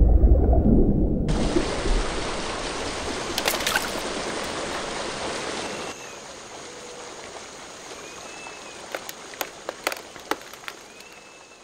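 A shallow stream running, opening with a deep underwater rumble that gives way to the hiss of flowing water just over a second in; the water sound drops lower about halfway through. A few short chirps sound over it, and near the end comes a run of sharp crackling clicks from a crumpled plastic bottle being handled.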